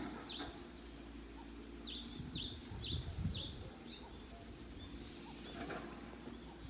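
A songbird singing a phrase of five quick, high, down-slurred whistled notes, with a faint steady outdoor background hiss.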